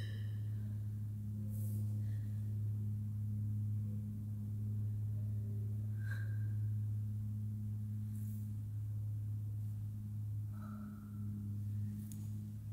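A steady low-pitched drone that holds one pitch with a faint overtone above it, with a few faint brief clicks and short higher tones scattered over it.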